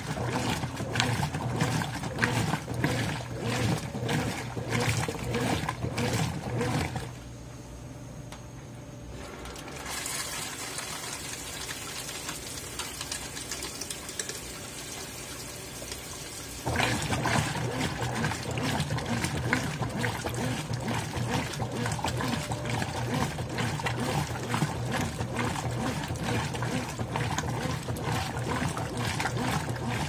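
Consul 13 kg top-load washing machine agitating a load of socks in water, a rhythmic churning swish. About seven seconds in the agitator stops, a steady hiss of running water follows, and the churning starts again a little past halfway.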